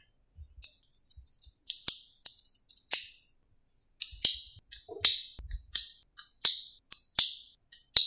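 Small neodymium magnetic balls clicking and snapping together as a strip of them is rolled into a tube: sharp, rattling clicks in irregular clusters, with a brief pause about halfway through.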